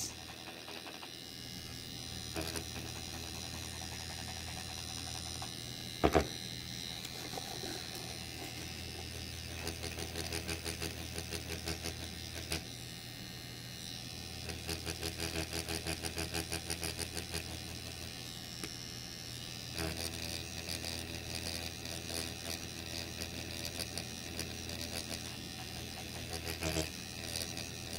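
Permanent-makeup pen machine running with a steady hum while its needle is worked in rapid shading passes over a latex practice skin. At times there is a faint pulsing about four times a second, and a single sharp tap comes about six seconds in.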